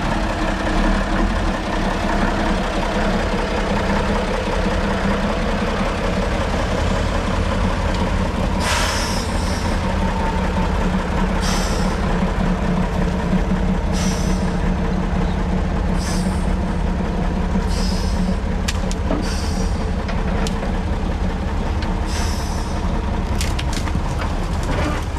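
Praga V3S trial truck's diesel engine running steadily under load as the truck crawls over a steep, rough section. From about a third of the way in, short sharp hisses come every two seconds or so over the engine.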